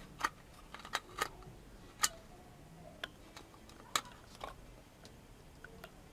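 LED bulb's metal bayonet cap being pushed and twisted into a plastic lamp-holder adapter by hand: a run of small, irregular clicks and scrapes, two sharper clicks about two and four seconds in.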